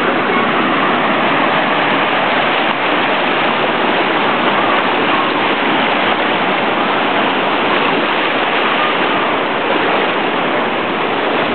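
Waves breaking on a beach, heard as a loud, steady, unbroken rush of surf.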